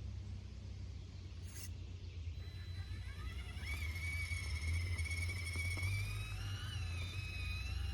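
Electric motor and gearbox of a 1/18-scale RC crawler whining as it drives, the whine starting about two and a half seconds in and wavering slightly in pitch with the load, over a steady low rumble.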